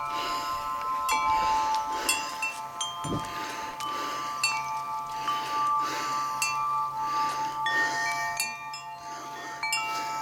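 Wind chimes ringing, struck irregularly over and over, their metal tones ringing on and overlapping.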